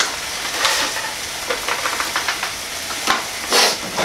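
Microwave rice pouches tipped into a saucepan of hot water on the hob, sizzling steadily, with short rustles and knocks and a louder clatter near the end.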